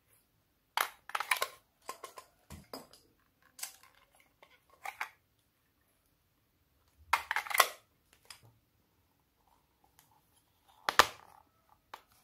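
Small plastic objects being handled and set down: short clicks, rattles and clatters in irregular groups, the loudest about a second in, midway and near the end.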